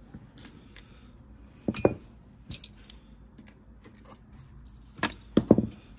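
Scattered light metallic clicks and clinks of small screws and a precision screwdriver being handled against the open drive's metal casing, with a few taps about two seconds in and a louder cluster near the end.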